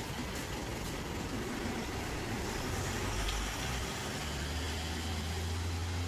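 A motor vehicle's engine running with a low steady hum that gets louder about four seconds in, over steady background noise.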